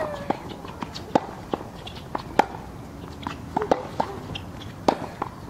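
Tennis ball being struck and bouncing during play: a string of sharp, irregularly spaced knocks. The loudest come about two and a half seconds in and near the end.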